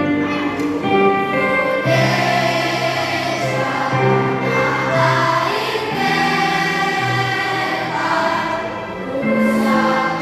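Children's choir singing in unison with long held notes, over instrumental accompaniment.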